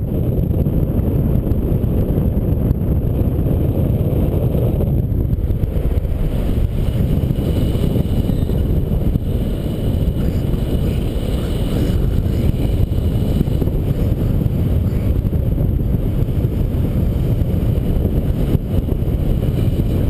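Airflow buffeting the camera's microphone in paraglider flight: steady, loud wind noise, heaviest in the low end.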